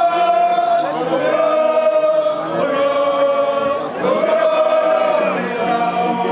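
Voices singing or chanting together in long held notes, in phrases of about a second and a half, each sliding up into its note.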